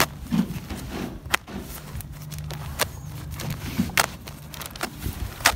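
Plastic wrapping on a carpet roll crinkling and snapping as a folding knife slits it open, with a few sharp snaps, the loudest about four seconds in and near the end. A low steady hum runs underneath from about two to about four seconds in.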